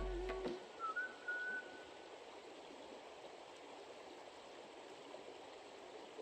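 Steady, faint outdoor rushing noise, like running water or wind, with a short whistle-like call about a second in.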